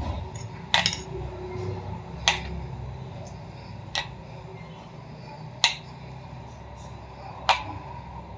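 Five short, sharp clinks about one and a half to two seconds apart, from a glass bowl and spoon touching a glass baking dish while thick white sauce is poured out, over a low steady hum.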